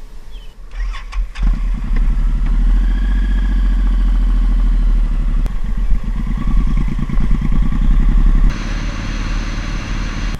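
Suzuki Boulevard M109R's big V-twin engine starting: it catches suddenly about a second and a half in and settles into a steady, loud idle. Near the end its note shifts and a hiss joins.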